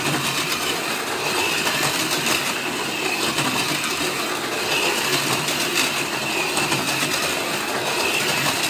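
Micro Scalextric HO slot cars running laps: small electric motors whirring and the cars rattling along the plastic track, with a high whine that swells and fades every couple of seconds as the cars come round.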